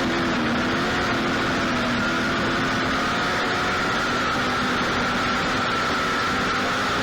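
Several race car engines running steadily, with a few held tones that drift slowly up and down in pitch over a dense noise.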